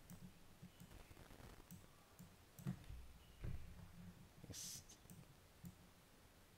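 Near silence with a few faint clicks of a computer mouse.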